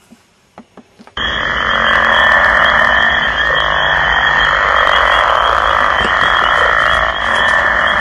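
A few faint clicks, then about a second in a loud, dense, steady chorus of calling animals cuts in abruptly and holds.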